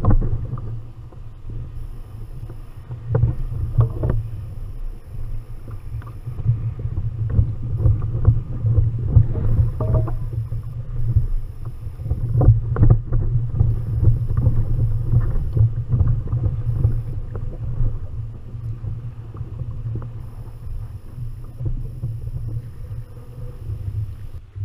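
Wind buffeting the microphone and choppy sea water slapping against a plastic fishing kayak's hull: a steady low rumble with frequent short knocks and splashes.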